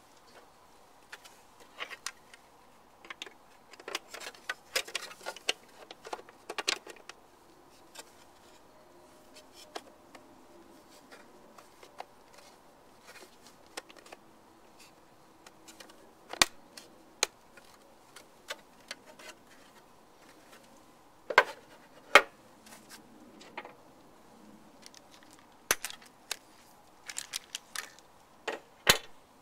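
Plastic alarm-box parts and a bagged bundle of fittings being handled and set down on a table: scattered light clicks, knocks and rustles, with a few sharper knocks in the second half.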